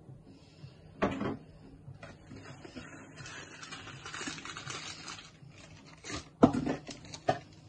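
Gloved hand working minced kebab meat in a glass bowl: soft squelching and rustling, with a knock about a second in and two sharper knocks near the end.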